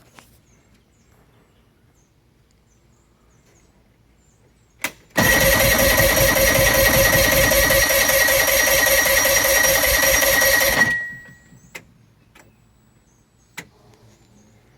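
A click, then the 1975 Chrysler 75 hp outboard's electric starter cranking the engine steadily for about six seconds, with a whine running through it. It stops without the engine catching, which fits the owner's complaint of no spark even with a new ignition pack.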